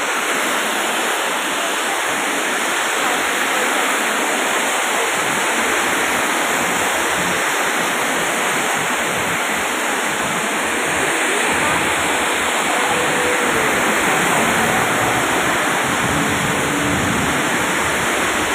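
Very heavy rain pouring down onto a road and pavement: a loud, steady, dense hiss of falling water. A low rumble of traffic driving through the wet road grows in the second half.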